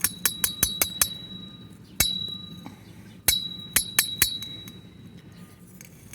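Small old dug-up metal bell being handled: sharp metallic clinks, each ringing briefly at one high tone. There is a quick run of about six in the first second, one about two seconds in, and a cluster of four a little past three seconds. The bell is checked for its clapper and appears to have none.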